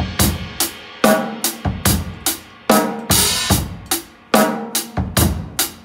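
Acoustic drum kit playing a basic eighth-note beat: steady cymbal strokes with snare backbeats and bass-drum kicks, played with a loose, open-palm counterweight motion meant to keep the time relaxed.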